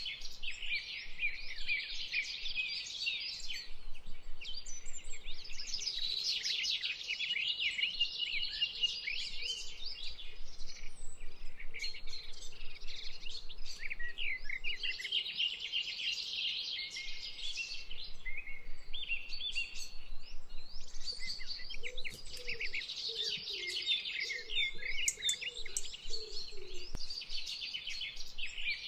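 A dense chorus of small songbirds chirping and trilling, with many overlapping high calls. A few lower calls join in about three-quarters of the way through.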